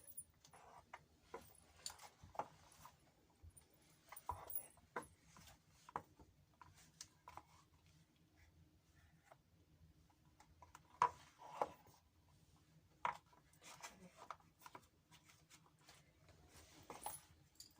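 Faint, scattered clicks, taps and light rubbing, as of small objects being handled, with two sharper taps about eleven and thirteen seconds in.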